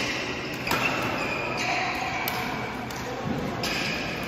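Badminton rally: rackets smacking a shuttlecock back and forth, with sharp hits about once a second that ring in a large hall, and sneakers squeaking on the court floor between the hits.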